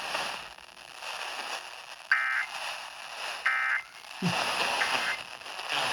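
Emergency Alert System end-of-message data bursts over FM radio: two short screeching digital bursts about 1.4 seconds apart, then a fainter third, heard through the steady hiss and static of a weak E-skip signal.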